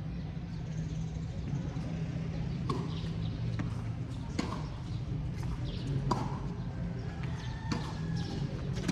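Tennis ball being hit back and forth in a rally: about half a dozen sharp pops of the ball off racket strings and the court, spaced about a second or more apart, over a steady low rumble.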